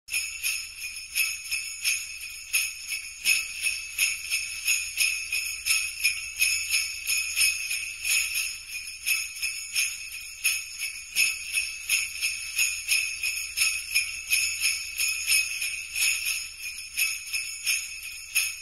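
Jingle bells (sleigh bells) shaken in a steady rhythm, a bright metallic jingle repeating several times a second.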